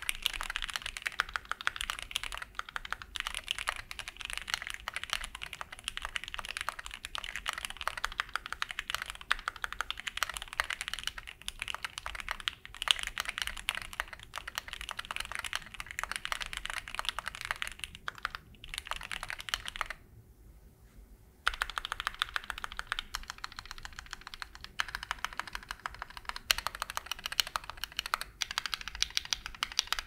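Typing on a stock Keychron Q8 mechanical keyboard with Gateron G Pro Red linear switches, a steel plate and double-shot PBT OSA keycaps: a dense, continuous run of keystroke clacks that pauses for about a second and a half about two-thirds of the way through.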